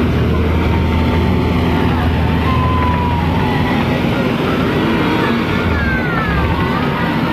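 Hydraulic excavator's diesel engine running steadily under load as its bucket works through wet mud, a deep, continuous engine drone.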